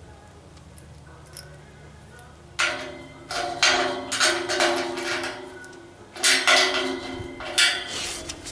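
Steel clanking against the steel body of a homemade propane-tank heater as a block is fitted inside the door opening: a run of sharp metal knocks with a ringing tone, starting about two and a half seconds in and coming in two bunches.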